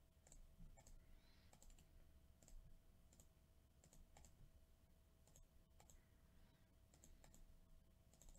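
Near silence with faint, scattered computer mouse and keyboard clicks, about one or two a second, over a faint steady hum.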